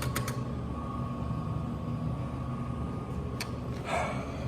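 Steady low mechanical hum with a faint whine running through it, broken by a single sharp click about three and a half seconds in and a short rustle near the end.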